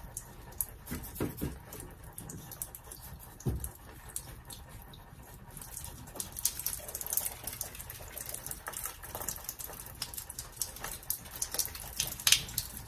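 Water trickling and draining from a water softener's just-disconnected supply line: residual water still running out after the house water has been shut off. A few knocks from handling the fittings come in the first four seconds, and from about halfway the trickle turns into a steady crackly splashing.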